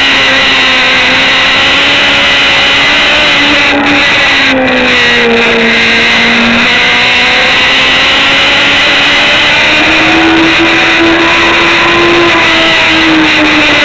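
Racing motorcycle engine running hard at track speed under heavy wind rush on the onboard microphone. The engine note drops about four seconds in, climbs slowly and steps up about ten seconds in, then dips again near the end.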